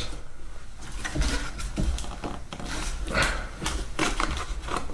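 Handling noise of snap-on plastic struts being fitted to the tail of a foam RC airplane: scattered light clicks and taps over low rubbing and rumble.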